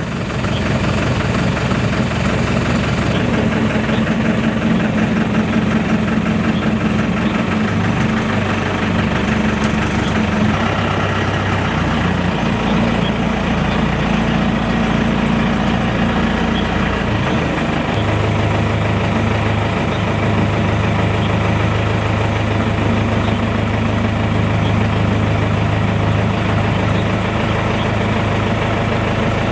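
Safari jeep's engine idling and running at low revs, its pitch stepping up and down a few times as the vehicle creeps and pauses.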